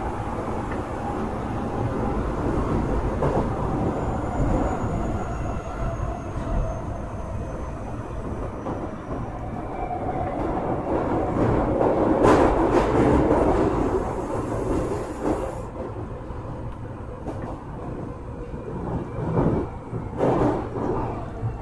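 Running sound inside an Osaka Metro 23 series subway car, renewed with Hitachi IGBT inverters: a steady rumble of wheels on the rails that grows louder about twelve seconds in and then eases. A faint high whine falls slightly in pitch.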